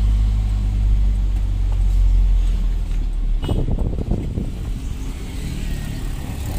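Truck engine running while driving, heard from inside the cab as a steady deep drone. About halfway through, the deep drone drops away and the engine runs quieter.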